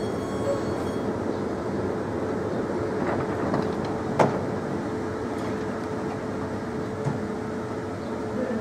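Oslo Metro MX3000 train standing at the platform, its on-board equipment giving a steady hum. A high electric whine dies away in the first second, and there is one sharp click about four seconds in.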